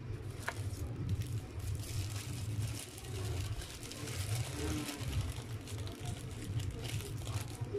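Ceiling fan running with a steady low rumble, under the crinkling of a white paper food wrapper being handled and opened.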